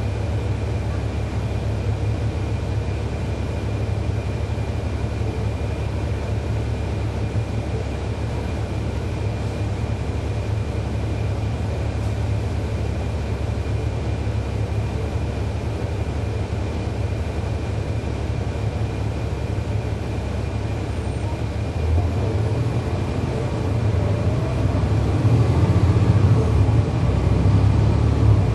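A 2011 NABI 40-SFW transit bus's Cummins ISL9 diesel running with a steady low drone and a faint steady whine. About 22 seconds in, the engine grows louder and a rising whine comes in as the bus accelerates.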